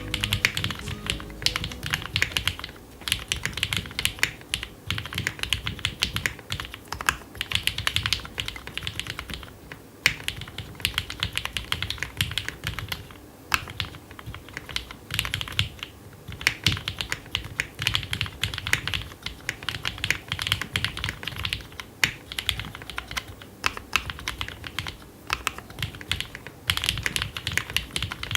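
Custom 60% mechanical keyboard with lubricated Cherry MX Black Hyperglide linear switches in a polycarbonate-plate, silicone-filled case, typed on in quick bursts of keystrokes with brief pauses between them.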